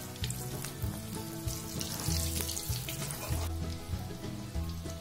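Dahi (hung-curd) kababs deep-frying in hot oil in a kadhai on a medium flame: the oil sizzles and crackles, easing a little about three and a half seconds in. Background music plays underneath.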